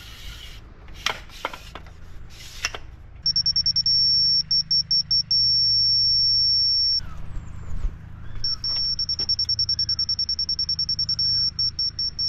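Laser-level receiver on a grade rod beeping as it picks up a rotating laser beam: a high, piercing tone that starts about three seconds in as a few quick beeps, settles into one continuous tone, cuts out around seven seconds, then comes back as rapid beeps running into a steady tone again. The continuous tone marks the receiver sitting at the beam's level, the quick beeps it being just off it. A few short rustles come before the beeping.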